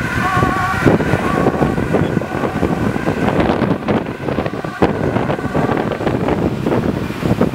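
An emergency-vehicle siren wavers briefly and stops about a second in. Heavy wind buffeting on the microphone and road noise from a fast-moving vehicle follow.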